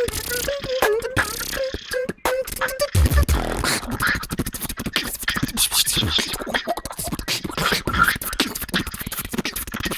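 Human beatboxing. For about the first three seconds it is a hummed melody over mouth clicks and snares, then it breaks into a fast, dense pattern of deep bass kicks, snares and hissing hi-hats.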